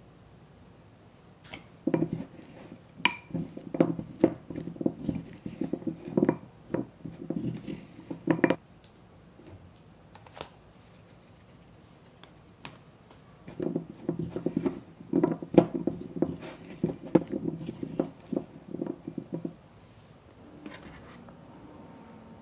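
Small fine-mesh strainer being tapped and shaken rapidly to sift powdered sugar over chocolate-coated nuts in a glass bowl. There are two spells of quick tapping, each about six seconds long, with a pause between them.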